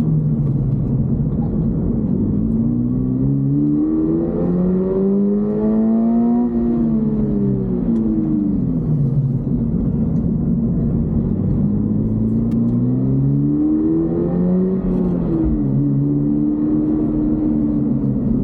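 Toyota GR86's 2.4-litre flat-four boxer engine under acceleration: the engine note rises for several seconds, then falls away as the car lifts off. It rises a second time, drops suddenly, as at a gear change, and then holds a steady note.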